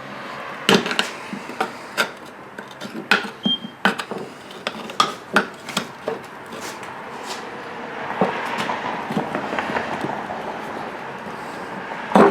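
Irregular sharp metallic clinks and knocks as a small snow blower tire is worked onto its rim, with a stretch of rubbing and scraping in the second half.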